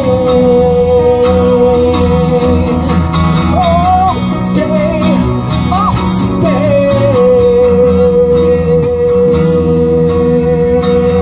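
Live electric and acoustic guitar duo playing a song, a long steady note held over the strummed guitars with a few short sliding, bending phrases about halfway through, and singing near the end.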